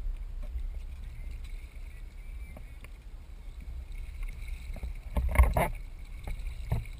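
Water splashing and churning beside a boat's hull as a landed sailfish, held by its bill at the surface, thrashes in the water. Short splashes and knocks over a steady low rumble, with the loudest splashing a little past five seconds in.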